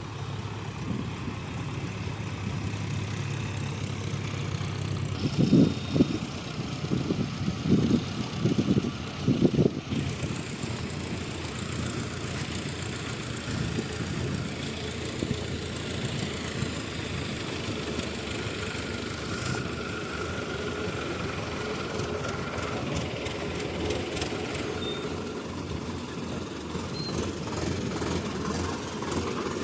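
Diesel engines of heavy earth-moving machinery running steadily. A run of loud, low surges comes between about five and ten seconds in.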